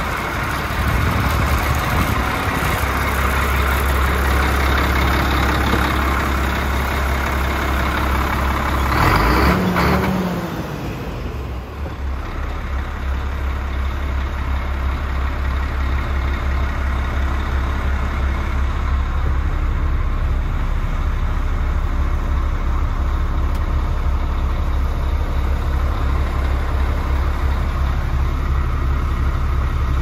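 DAF CF75.310's 310 bhp turbo-diesel six-cylinder engine idling steadily with a low hum. There is a brief louder noise about ten seconds in, and after it the engine sounds duller, heard from inside the cab.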